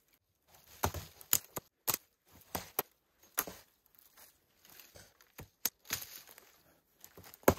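Axe chopping the branches off a dead tree: irregular sharp strikes, some in quick pairs, with pauses between.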